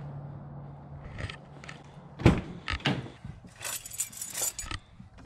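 Getting into a car: a door clunk about two seconds in, a couple of sharp clicks, then a short jangle of keys.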